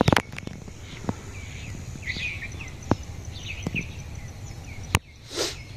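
Small birds chirping in short, repeated calls over a steady low rumble of outdoor background noise. A few sharp clicks are heard, and there is a brief rush of noise near the end.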